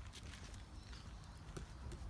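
Wood bonfire crackling: scattered small pops and ticks from the burning wood over a steady low rumble.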